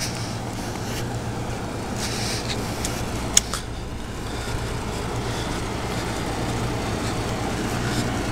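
Steady low hum of running vehicle engines, with one sharp click about three and a half seconds in.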